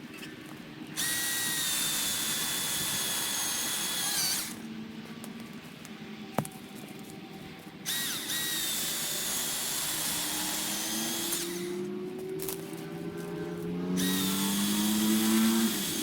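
Milwaukee M18 Fuel cordless chainsaw motor whining in three bursts of a few seconds each, its pitch dipping at the end of each burst. A lower hum rises in pitch through the second half, and there is a single sharp click near the middle.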